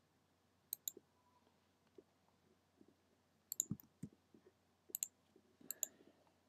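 Computer mouse clicking four times, each a quick pair of clicks as the button is pressed and released, with a couple of soft low thumps about three and a half seconds in.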